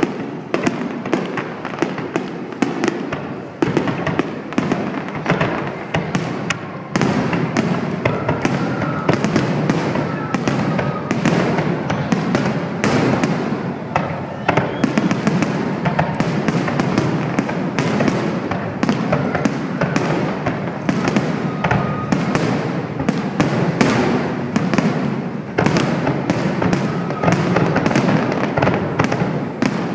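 Fireworks going off in quick succession: a dense, continuous barrage of overlapping bangs and crackles.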